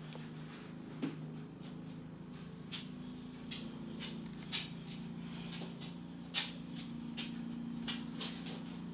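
Steady low hum with about ten light, irregular taps and scratches as a fine-tip Sharpie marker is dabbed and stroked across a smooth gel-polished nail.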